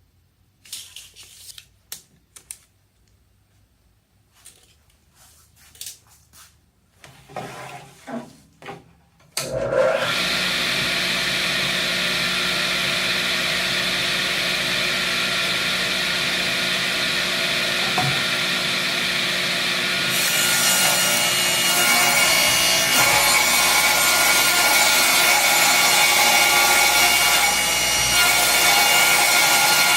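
A few quiet knocks and handling sounds, then about nine seconds in an electric saw starts and runs steadily. From about twenty seconds in it gets louder and harsher as it cuts wood.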